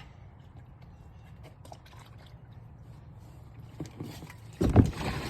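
A few faint plastic clicks and knocks, then about four and a half seconds in a loud thump and a rush of water as the water inside a plastic ride-on toy car is tipped into its back.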